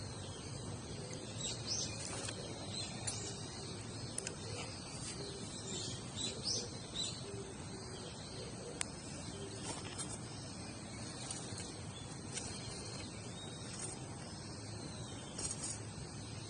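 Small birds chirping in short, irregular calls over a steady outdoor hiss, with one sharp click about halfway through.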